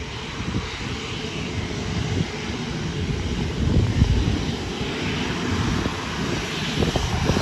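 Airliner engines running, a steady rumble with a high hiss, under gusty wind buffeting the microphone.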